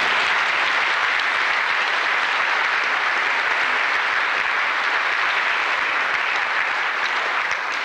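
Audience applauding: a steady spell of clapping that dies away near the end.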